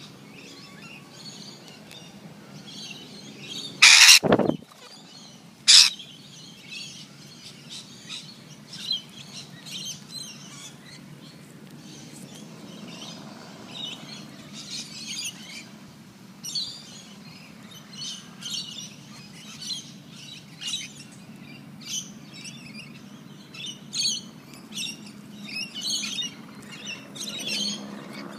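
Birds chirping over and over in short high notes, with two much louder short, harsh sounds about four and six seconds in.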